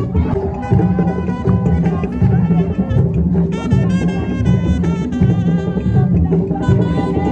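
Borborbor music: a dense, loud drum rhythm with a higher melodic line on top that grows stronger about halfway through.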